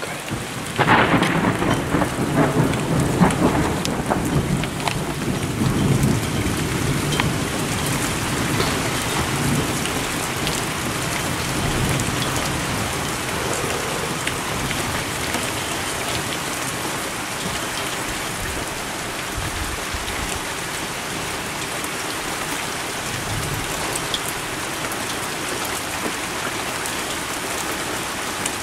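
Thunderstorm: steady heavy rain throughout, with a loud thunderclap about a second in that rolls and rumbles for around five seconds before fading back under the rain.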